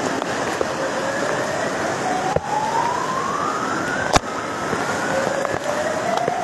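Steady rush of fast-flowing floodwater, with a thin tone that keeps slowly rising in pitch over it and a sharp click about four seconds in.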